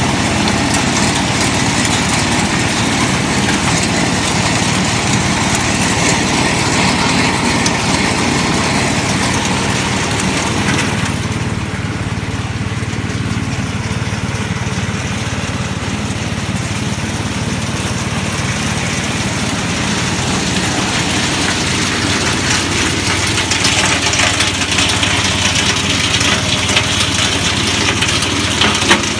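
Small engine of an H 130 hazelnut harvesting machine running steadily. About eleven seconds in the higher part of the sound drops away, and from about twenty seconds a brighter, hissing layer builds up over the engine.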